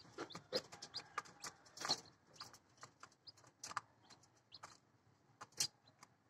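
Young chicks peeping in scattered short, high chirps, with soft clicks and taps as they peck feed inside a plastic-tub feeder.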